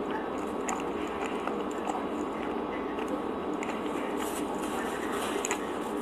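Close-mouthed chewing of soft bread with mashed beans: scattered small wet mouth clicks over a steady background hum.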